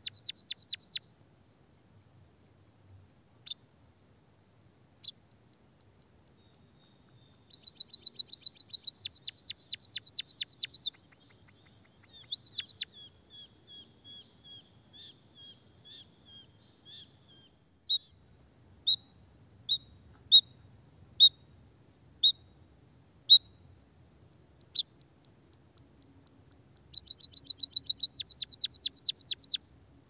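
White-headed munia singing: fast, high-pitched trills of rapidly repeated notes, three times, with a softer run of notes and a string of single sharp chips about a second apart in between.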